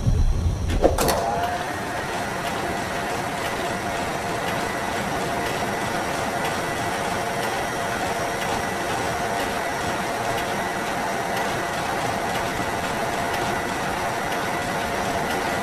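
Motorized loading mechanism of an ammunition rack running with a steady mechanical whir, after a sharp clank about a second in.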